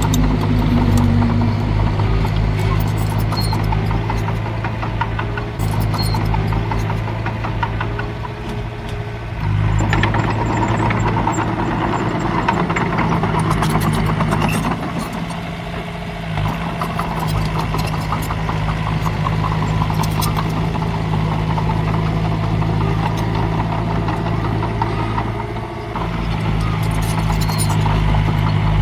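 Heavy diesel engine of earthmoving machinery running steadily under load. Its note dips and shifts about 9 seconds in, again about 15 seconds in and once more near 26 seconds, with scattered sharp metallic clicks throughout.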